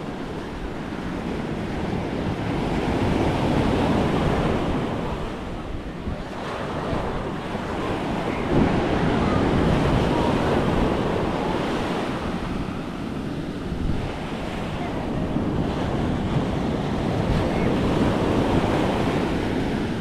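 Atlantic surf breaking and washing up the sand, the rush of water swelling and easing three times, with wind buffeting the microphone.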